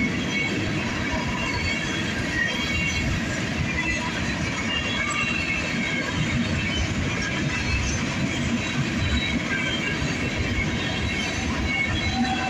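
Freight train of covered hopper cars rolling past: a steady rumble and clatter of wheels on the rails, with short high squeals from the wheels here and there.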